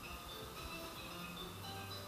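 Faint background music, short notes at changing pitches.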